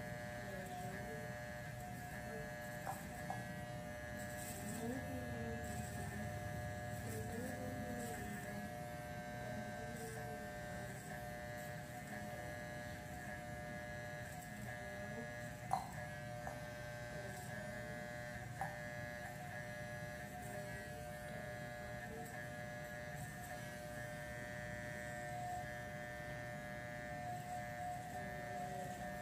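Corded electric hair clippers buzzing steadily as they cut and fade short hair on the side of a head, with one sharp click about halfway through.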